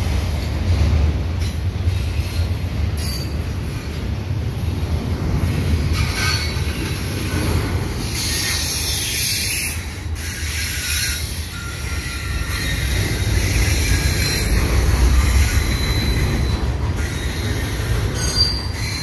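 Double-stack freight cars rolling past with a steady low rumble, their wheels squealing on and off as they take the curve.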